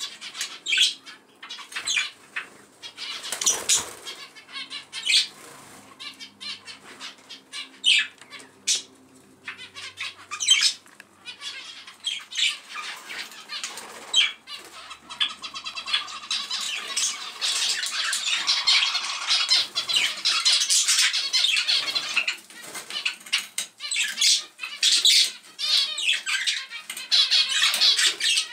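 Budgerigars and Java sparrows calling: short separate chirps at first, thickening after about fifteen seconds into a dense, continuous chattering warble from several birds at once.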